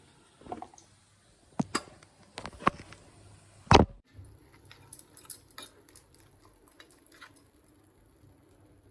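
Kitchen utensils and dishes clinking and knocking during food preparation: scattered light taps, with one louder knock a little under four seconds in, then fainter clicks.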